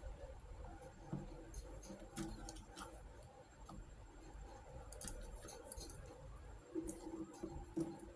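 Small miniature toy kitchen pieces being handled, giving light, irregular clicks and taps, with a few sharper ones near the end.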